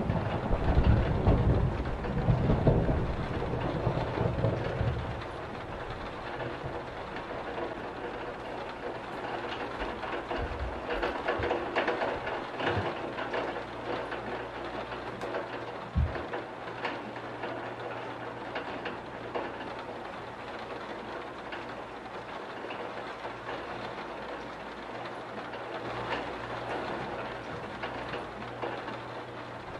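Steady heavy rain, with a low roll of thunder dying away over the first few seconds. A single low thump comes about halfway through.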